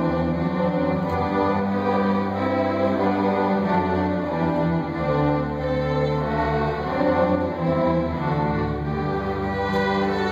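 School string orchestra playing, violins and other bowed strings sounding long held notes that change every second or two at an even volume.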